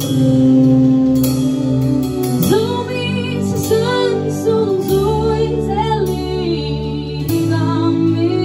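Live band playing a song in a small rehearsal room: drum kit with cymbals, electric bass and electric guitar under sustained low chords. A voice comes in singing a slow, wavering melody about two and a half seconds in.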